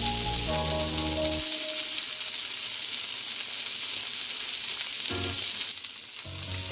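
Ground-beef burger patties sizzling steadily in a stainless steel frying pan, the hiss easing briefly near the end.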